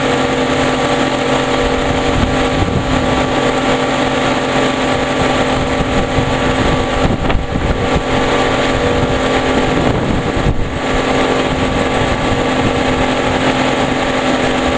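Motorboat engine running steadily at speed, with the rush of water from the wake.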